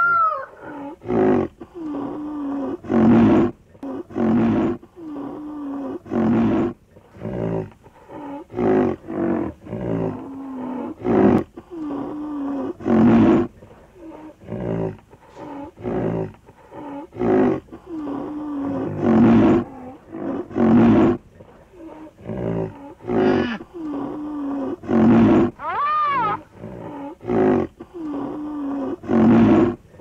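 Rhinoceros calls repeated over and over: harsh, breathy bursts alternating with deep, wavering moans, about one call every second or two. A higher arching squeal-like tone cuts in once, late on.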